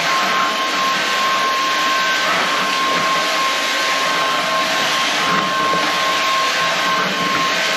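Inse S610 cordless stick vacuum running steadily: a rushing suction hiss with a steady high whine from its motor.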